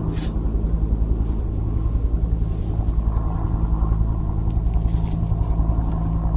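Boat motor running steadily at trolling speed, a low even drone with a slight pulse. A light click comes just after the start.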